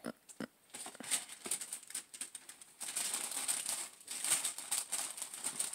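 Paper and cardboard packaging of a shoebox being handled: irregular rustling and crinkling, with a few light knocks near the start and heavier crinkling in the second half.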